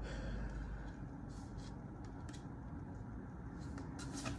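Quiet room tone with a low steady hum and a few faint, soft rustles, most of them near the end.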